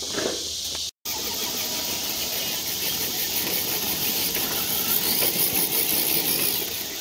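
Small electric RC rock crawler's motor and gears whining under load as it works over rough ground, getting louder in the second half. The sound cuts out completely for a moment about a second in.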